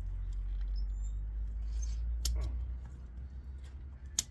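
Low rumbling handling noise with a few light clicks while scrap copper is being cut and pried off a piece. One sharp click near the end.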